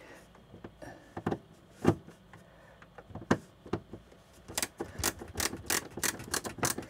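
Phillips screwdriver undoing a screw in the corner of a caravan window blind frame: scattered sharp clicks, coming faster and more evenly in the second half, about three a second.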